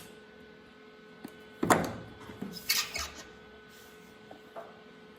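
A few brief handling noises in the shop: a sudden knock or rustle about two seconds in, followed by short scraping sounds, over a faint steady electrical hum.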